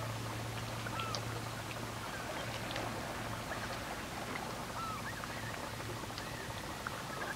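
A flock of gulls calling over the water: many short, overlapping cries that rise and fall, scattered through the whole stretch, over a faint hiss.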